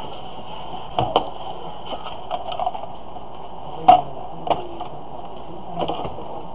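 Scattered light clicks and knocks of laptop parts being handled during a screen replacement, the sharpest knock about four seconds in, over a steady background hiss.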